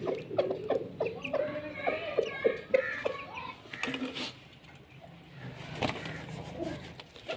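Chickens clucking over the first few seconds. Then it goes quieter, with a few sharp clicks and knocks as the wire-mesh cage is handled.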